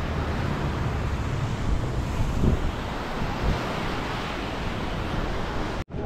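Ocean surf washing onto a sandy beach, with wind buffeting the microphone in a low rumble and a couple of stronger gusts a little past two seconds in. The sound cuts off suddenly just before the end.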